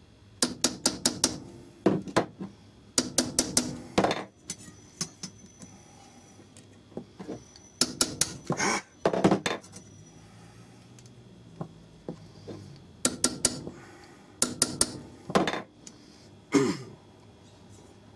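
Small hammer tapping on a bolt head to flare the end of a metal tube through a wooden knife handle, pressed against a steel ball underneath. Sharp metallic taps come in several quick bursts with short pauses between them.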